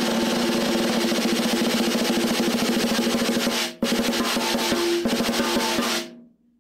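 Free-floating PVC-shell snare drum with a coated Evans head, die-cast top hoop, snare wires and a donut muffling ring, played with sticks in a fast, continuous roll. The playing breaks off for an instant a little under four seconds in, then stops about six seconds in.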